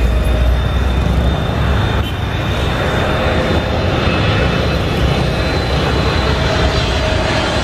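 Jet engines of a Boeing 777-300ER on final approach, a loud steady rumble with a faint whine joining about halfway through.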